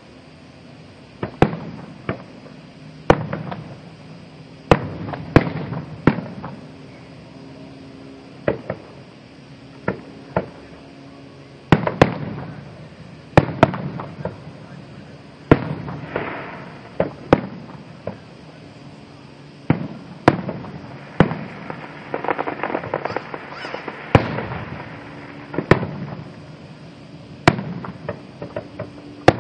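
Fireworks display: aerial shells bursting with sharp bangs every second or two, with stretches of crackling about halfway through and again in the latter part.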